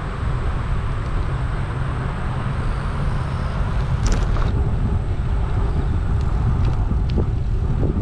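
Steady wind rushing over the microphone with tyre rumble from a road bike rolling along a paved bike path. A brief sharp click sounds about halfway through.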